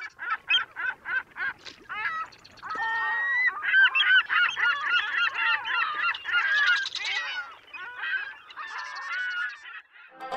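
A flock of birds calling. Single calls come about three a second at first, then many overlap in a dense chorus, which thins out and fades near the end.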